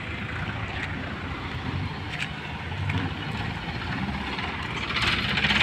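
Forklift engine running steadily at idle, a low even hum. A rushing hiss grows near the end.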